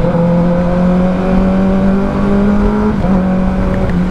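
2023 Kawasaki ZX-10R's inline-four engine pulling hard under acceleration, its pitch climbing steadily and then dropping briefly about three seconds in as it shifts up a gear. Wind noise runs underneath.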